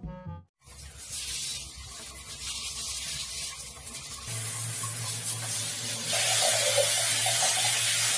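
Water rushing steadily from a handheld shower head being sprayed over a cat, getting louder about six seconds in. A steady low hum joins about four seconds in.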